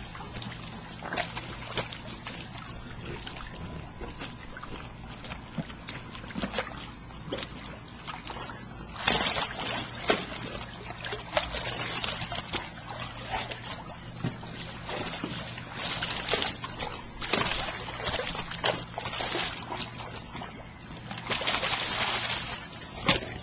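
Water splashing and sloshing in a shallow plastic kiddie pool as a dog thrashes and lunges through it after a floating toy. The splashing grows louder about nine seconds in and is loudest near the end.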